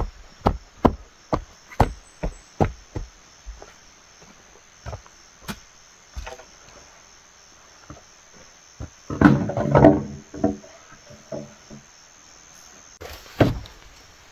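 A pole jabbed repeatedly into earth to dig a hole, dull thuds about two and a half a second for the first three seconds, then a few scattered knocks. About nine seconds in, long hollow bamboo poles clatter and knock together with a ringing tone for over a second, and one more sharp knock comes near the end. Insects drone steadily at a high pitch.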